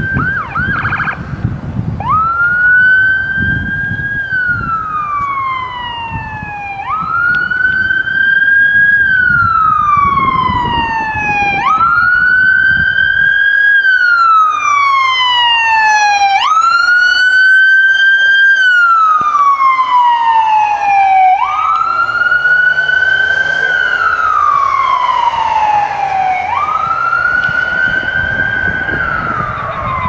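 Ambulance's electronic siren sounding a wail. Each cycle jumps up quickly, then falls slowly, repeating about every five seconds, with a brief fast warble about a second in.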